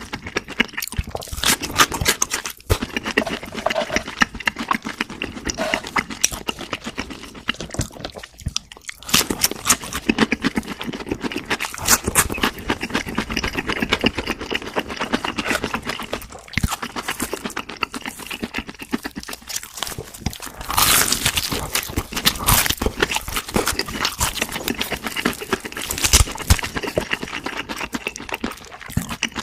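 Close-miked crunching and chewing of crispy fried food: bites into a fried coating and wet chewing, with dense crackling clicks throughout and louder crunches a little after twenty seconds in.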